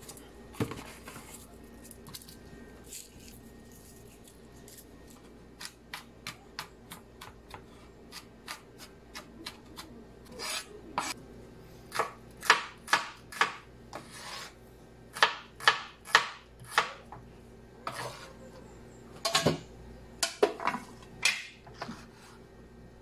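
Kitchen knife chopping a red onion on a bamboo cutting board: a run of uneven knocks of the blade on the wood, soft at first and louder from about midway.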